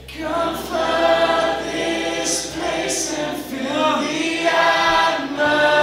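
A crowd of voices singing a worship song together, like a congregation or choir.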